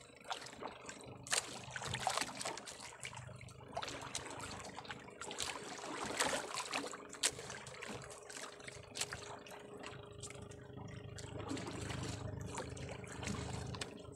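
Seawater trickling and lapping against a small fishing boat, with scattered clicks and rubbing as a fishing handline is hauled in by hand.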